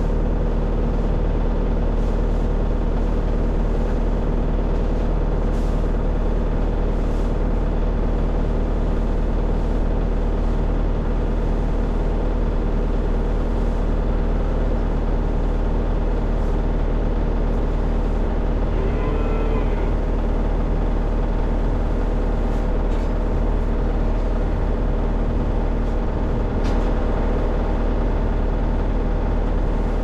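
A vehicle engine runs steadily with a deep, even hum. About 19 seconds in, a short call rises and falls over it.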